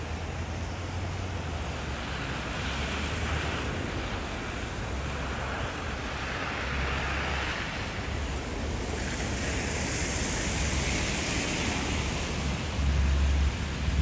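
Wind gusting on the microphone over a rushing outdoor hiss in a snowstorm. The hiss swells and fades every few seconds, loudest about ten seconds in, and the wind rumble is strongest near the end.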